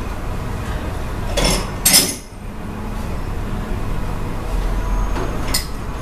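Dishes and cutlery clinking in a restaurant dining room: two sharp clinks about one and a half to two seconds in and another near the end, over a steady low hum.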